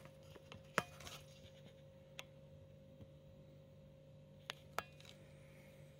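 Faint handling noise: a handful of small sharp clicks and taps, the sharpest about a second in and two close together near the end, over a steady low electrical hum.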